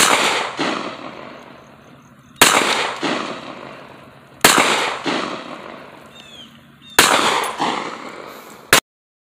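Four gunshots fired about two seconds apart, each followed about half a second later by an echo and a slow fade. A fifth short crack near the end is cut off abruptly.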